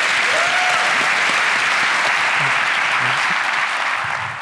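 Audience applauding steadily, with a brief whoop and a few faint calls from the crowd.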